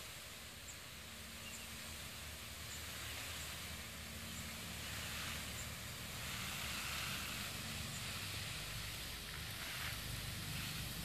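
Garden hose spray nozzle hissing steadily as a fine spray of water falls on a flower bed, the hiss swelling a little now and then as the spray moves. A low steady rumble runs underneath.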